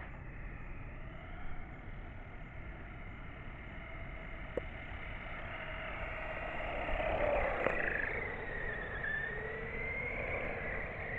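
Electric RC car's motor whining as the car drives past, its pitch rising and falling with speed and loudest about seven seconds in.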